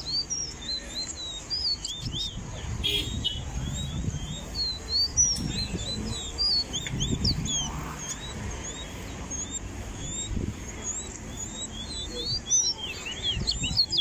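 Caged songbirds singing: a fast, busy run of short, high chirps and whistled notes that goes on throughout, over a low background rumble.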